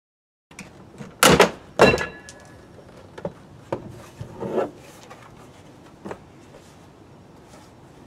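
Hard plastic cracks and knocks as the inner plastic trim panel of a VW Golf Mk5 tailgate is pulled free of its clips: two loud sharp cracks a little over a second in, then lighter clicks and knocks.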